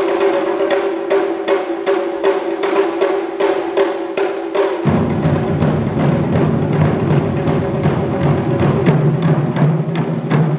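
Ensemble of Japanese taiko drums (nagado-daiko on slanted stands) struck with sticks in an even, driving rhythm. About five seconds in, a deeper drum sound joins and fills out the low end.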